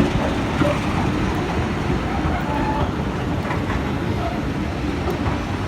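Steady low rumble of a heritage railway locomotive's engine running at a station platform.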